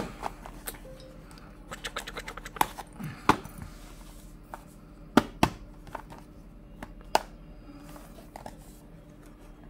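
Small cardboard earbud boxes being handled and set down on a table: a series of sharp taps and knocks at irregular times, with a quick run of small clicks about two seconds in.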